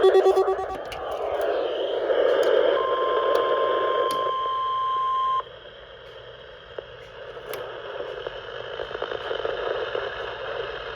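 NOAA Weather Radio heard through a receiver with weak reception. A fast-pulsing digital alert data burst ends in the first second, and static hiss follows. About three seconds in, the steady 1050 Hz weather radio warning alarm tone sounds over the hiss for about two and a half seconds, then cuts off abruptly, leaving fainter hiss.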